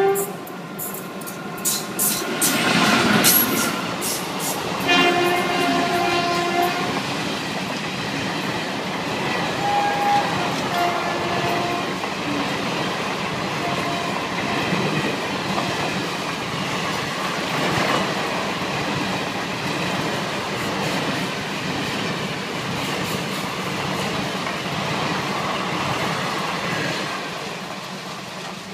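Indian Railways express passenger train passing close at speed behind an electric locomotive. There is a loud rush about three seconds in, a horn held for about two seconds around five seconds in and two short toots around ten and eleven seconds. After that the steady rumble and clatter of the coaches' wheels on the rails runs on and fades near the end as the last coach goes by.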